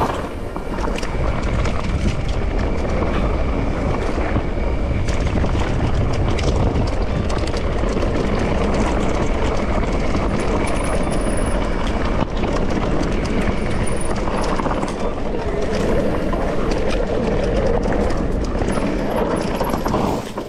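Riding noise from a mountain bike on a rough trail: a steady low rumble of wind on the microphone, with tyre noise and frequent small knocks and rattles from the bike. It eases off near the end.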